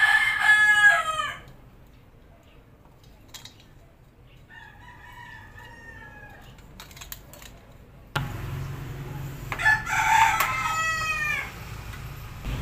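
Roosters crowing: one crow trailing off about a second in, a fainter one around five seconds, and another loud crow around ten seconds. A steady low rumble sets in about eight seconds in.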